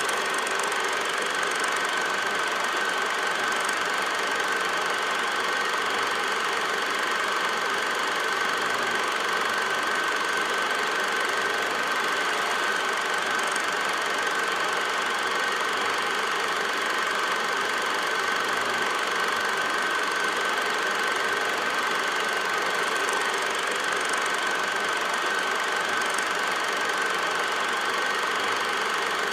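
8mm film projector running steadily: an even mechanical whir and clatter with a constant high whine.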